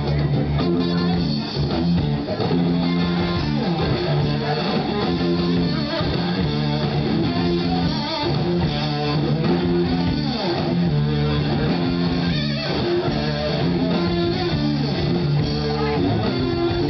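Live rock band playing an instrumental passage, electric guitar and bass guitar to the fore.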